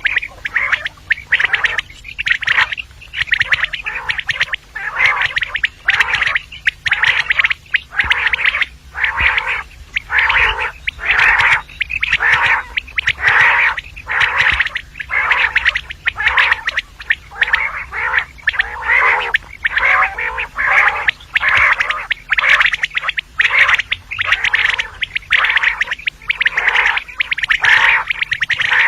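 Common quail calling over and over in short, loud bursts, about one or two a second, with no pause.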